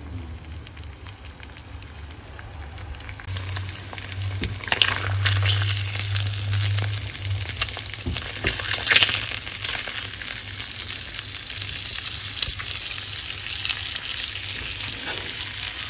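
Fish fillets sizzling in hot oil in a frying pan, growing louder about three seconds in, with a few sharper spits and crackles around five and nine seconds as tongs move the fillets.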